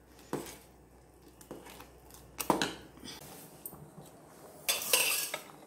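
A steel spoon stirring thick kheer in a steel saucepan: scattered clinks and scrapes of the spoon against the pot, the sharpest about two and a half seconds in, then a longer rustling scrape near the end.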